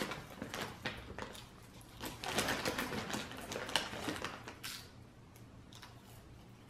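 Crinkling of a plastic popcorn bag as hands dig into it, with popcorn being crunched and chewed: a run of small clicks and rustles, busiest about two to four seconds in.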